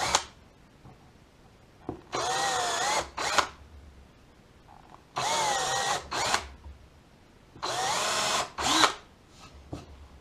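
DeWalt 18V cordless drill boring pilot holes into wood: three runs of about a second each, a few seconds apart, each followed by a short extra burst of the trigger.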